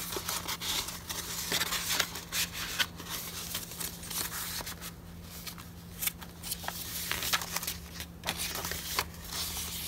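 Paper rustling and crinkling in quick, irregular strokes as an envelope, a small booklet and the tea-stained pages of a handmade junk journal are handled and turned, over a faint steady low hum.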